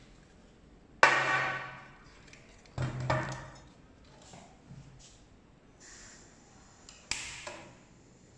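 A stainless steel pan support clanks onto a portable gas stove's body, once about a second in and again in a double knock near three seconds, each with a short metallic ring. Near seven seconds a sharp click comes as the stove's igniter is worked and the burner lights, over a faint steady hiss of gas.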